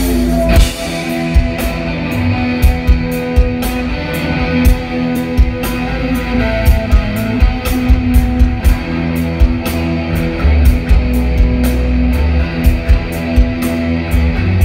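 Live rock band playing amplified electric guitars, bass and drum kit, with held guitar chords over steady drum hits.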